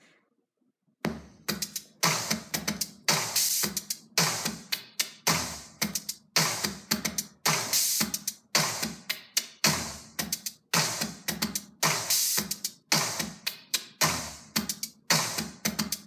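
Electronic music with a steady drum-machine beat, about two hits a second, played through a JBL Charge 2 Bluetooth speaker at half volume and picked up by a microphone in the room. It starts about a second in, after a short silence.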